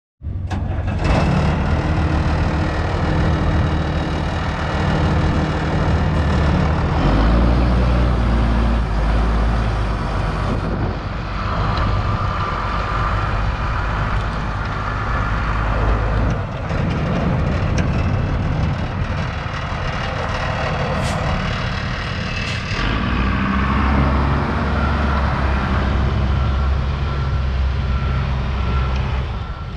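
1993 International 4900 dump truck's diesel engine idling steadily.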